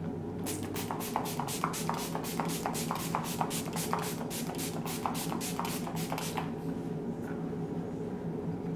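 Travel-size MAC Fix+ setting-spray pump bottle spritzed rapidly, about five short sprays a second, misting the face for about six seconds before stopping, over a steady low hum.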